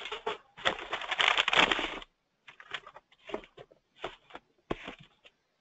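Computer keyboard typing: about two seconds of dense, rapid clatter, then a string of separate, spaced-out keystroke clicks.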